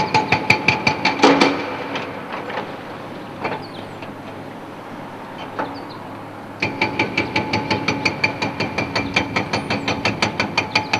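Excavator-mounted hydraulic breaker hammering a concrete bridge, ringing metallic blows about four a second. It pauses after about two seconds, leaving only a few scattered knocks, and starts hammering again about six and a half seconds in.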